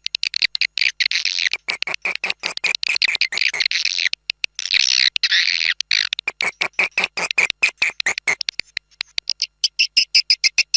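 Swiftlet lure-sound recording: edible-nest swiftlets' rapid twittering chirps in dense, stuttering trains, with short breaks a little under halfway through and again near the end.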